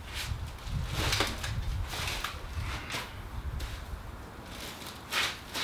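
Handling noise from a fat-tire electric bike being flipped upside down onto foam: a low rumble with several light knocks and rattles, and a last knock about five seconds in.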